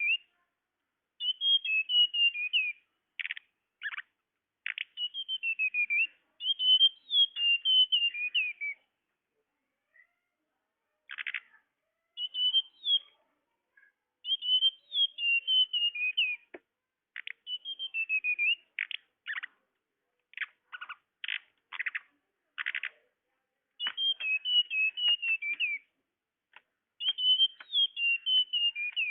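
Flowerpecker (tledekan) calls played as a bird-trapping lure: short runs of quick, high, falling twitter notes alternating with sharp single tick calls, in groups broken by brief pauses.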